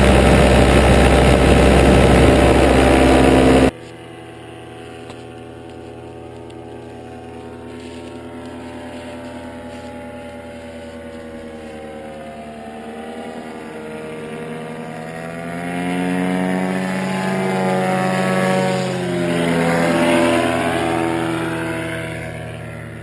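Paramotor engine running loud and close, heard from the pilot's own frame. It cuts off abruptly about four seconds in and gives way to the same kind of engine in the distance. That engine grows louder over several seconds as the paramotor flies past, its pitch dropping as it goes by, then fades a little.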